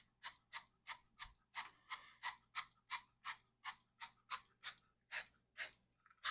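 Hand-pump oil spritzer of canola oil being squeezed again and again, giving short sprays about three times a second.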